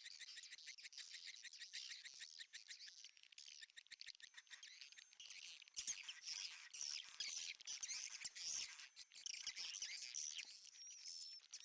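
Swiftlets twittering in a dense, continuous chatter of high chirps mixed with rapid clicks, growing louder about halfway through.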